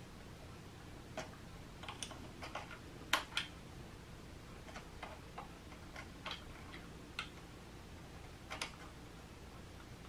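Scattered light clicks and taps, a dozen or so at irregular intervals, from hand work on the hose fitting of a Magura MT5 brake lever as the brake line connection is tightened.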